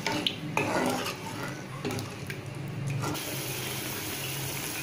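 Spoon stirring thin tamarind gravy in a pan, sloshing and scraping irregularly. About three seconds in, this gives way to a steady bubbling hiss as the gravy boils.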